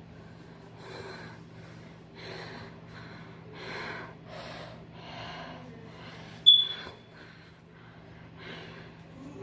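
A frightened person breathing hard and sniffling in quick, uneven breaths, about one every second or less. About two-thirds of the way through, one brief sharp high squeak is the loudest sound. A steady low hum runs underneath.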